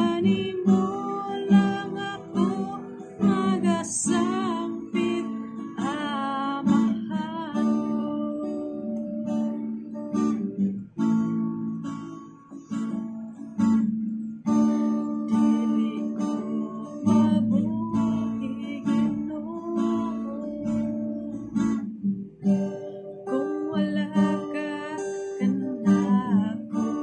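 A woman singing to her own strummed acoustic guitar, with held notes sung with vibrato.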